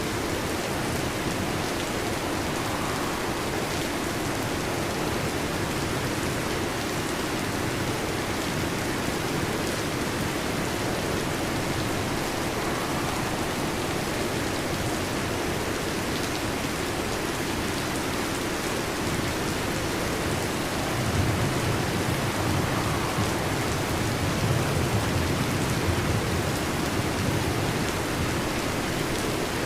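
Heavy rain falling steadily, with a low rumble of distant thunder swelling for several seconds about two-thirds of the way through.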